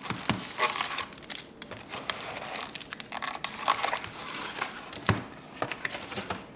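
Foil-wrapped trading-card packs crinkling and rustling as they are handled and taken out of their box. Scattered clicks and knocks of cardboard are heard among them, the loudest about five seconds in.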